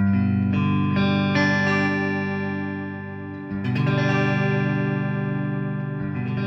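Sire S7 Vintage electric guitar on its neck-and-middle pickup setting, played with a clean tone. A chord rings out with further notes joining over the first second and a half, then a second chord is struck about three and a half seconds in and left to ring.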